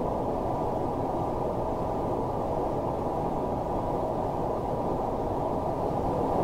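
Granular synthesis output from the Granulizer plugin: a steady, dense, grainy rushing texture with no clear pitch and a dull, muffled top, growing a little louder near the end.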